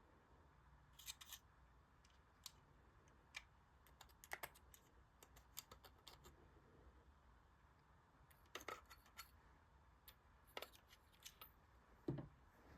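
Faint, irregular clicks and light taps of small plastic and cardboard pieces being handled, with a duller knock near the end that is the loudest sound.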